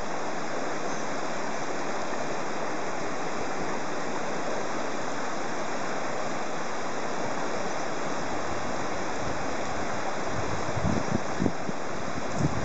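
Steady rush of river rapids pouring over and around boulders, with a few low thumps near the end.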